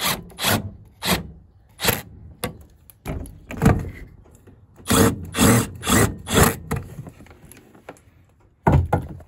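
Milwaukee Fuel cordless impact driver driving screws in short trigger bursts, tightening a shelf bracket down, with a longer run about three seconds in.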